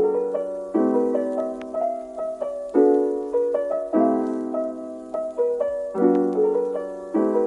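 Background piano music: chords struck about once a second, each ringing and fading before the next, with lighter notes above.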